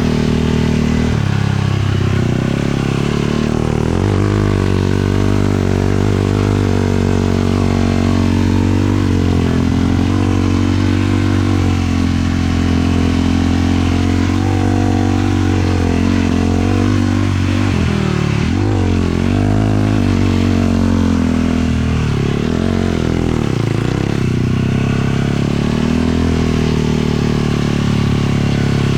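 Single-cylinder 450 sport quad engine running steadily under way, its pitch rising and falling a little with the throttle and dipping briefly a couple of times past the middle.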